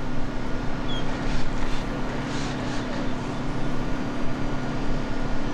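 Steady low mechanical hum under an even outdoor noise.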